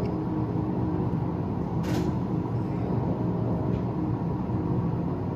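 Train driving simulator playing the running sound of an electric train at about 40 km/h: a steady rumble with a faint hum. There is a brief sharp sound about two seconds in.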